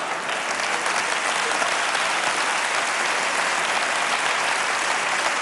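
Large seated theatre audience applauding steadily, many hands clapping at once.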